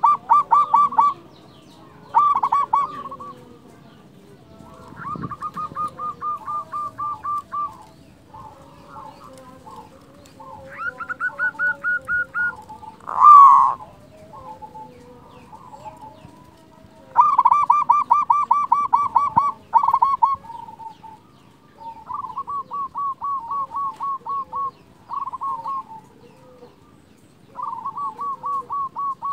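Zebra dove (perkutut) cooing: repeated phrases of rapid, evenly spaced staccato notes, some loud and some fainter. A single loud rising call about thirteen seconds in is the loudest sound.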